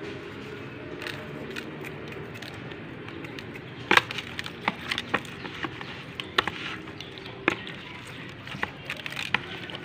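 Raw moonfish being rubbed with salt and turned over by hand in a plastic tub. Scattered sharp clicks and knocks of fish and fingers against the plastic start about four seconds in, over a steady low hum.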